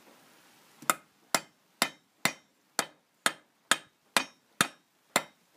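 Ten light, evenly spaced hammer blows, about two a second and starting about a second in. They are metal striking metal: an old bearing is used as a drift to drive a new front wheel hub bearing into the hub of a Lada Oka without a press. The blows are kept light so the bearing goes in square, without cocking.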